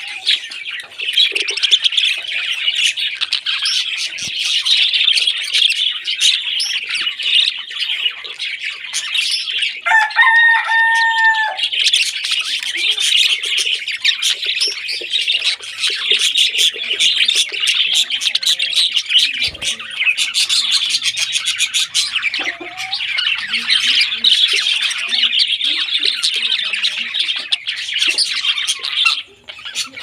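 A flock of budgerigars chattering and warbling without a break, a dense mix of fast high chirps from many birds at once. About ten seconds in, a single held, steady-pitched note sounds over the chatter for a second or two.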